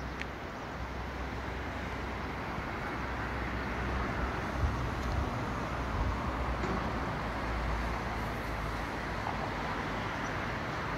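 Steady outdoor background noise: an even rushing haze over a town and river, with uneven low rumbling of wind on the phone's microphone and a brief knock about four and a half seconds in.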